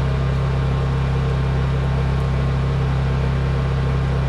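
Honda portable generator engine running steadily at full throttle with its energy-saving mode off, under load while charging an electric car; an even, unchanging hum.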